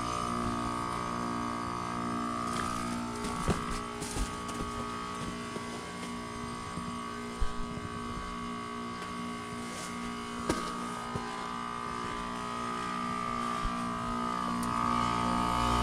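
Goodman heat pump outdoor unit running, its Emerson scroll compressor giving a steady hum with a high whine over it, along with the condenser fan. A few short clicks sound through it.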